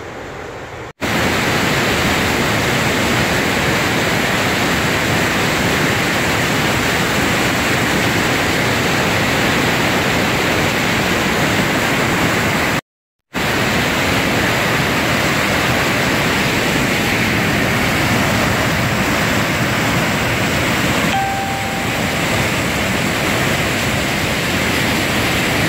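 Water pouring over a weir in heavy flow: a loud, steady rush of white water. The sound breaks off twice, briefly, about a second in and about 13 seconds in.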